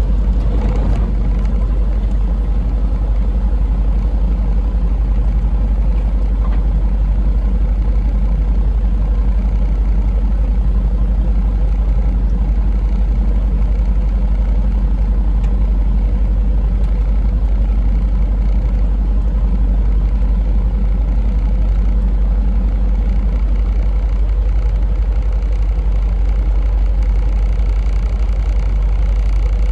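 Semi truck running steadily, a constant low engine and road drone.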